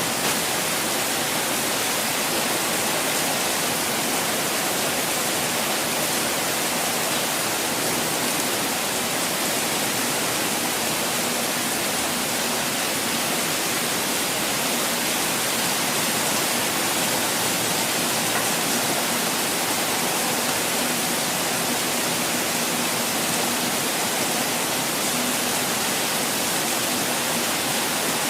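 Continuously falling water: a steady, even rush with no breaks or changes.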